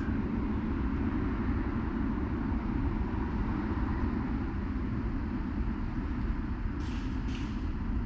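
Steady low rumble of road traffic, with two brief hisses about seven seconds in.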